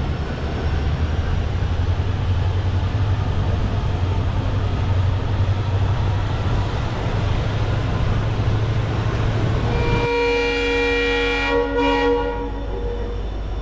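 Passenger train running along the track, a steady low rumble heard from a coach window. About ten seconds in, the train's horn sounds one long blast of about three seconds.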